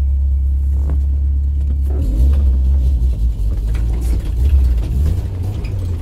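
Old car's engine running, heard from inside the cabin as a loud, steady low rumble. About two seconds in it turns rougher and uneven.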